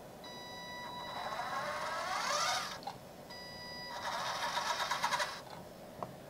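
The electric drive of a 1/14 LESU RC hydraulic excavator whines in two runs of about two and a half seconds each as the upper structure is swung from the transmitter stick. The pitch rises toward the end of the first run.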